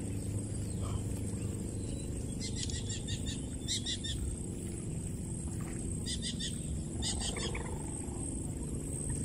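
Outdoor ambience: a steady low rumble, with four short bursts of rapid, high bird chirps.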